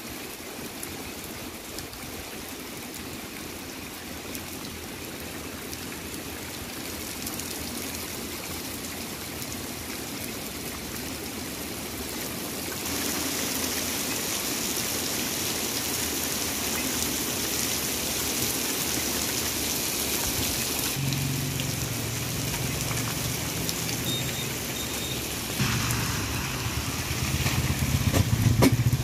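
Heavy rain pouring steadily onto a wet paved road, getting louder about halfway through. Near the end a motorcycle engine running comes in under the rain.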